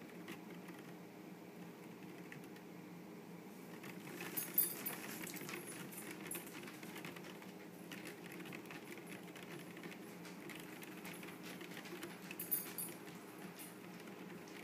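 Mice scrabbling and skittering on a cardboard box and rustling grass: faint little clicks and scratches that come in flurries, about four seconds in and again near the end, over a steady low hum.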